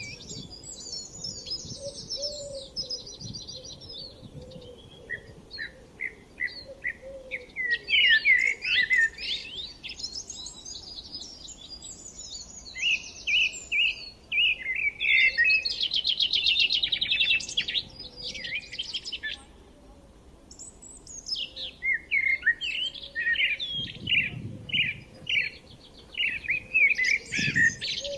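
Several songbirds singing and chirping over one another. About six seconds in, one bird gives a run of evenly repeated notes; a fast trill comes around the middle; there is a brief lull about two-thirds of the way through.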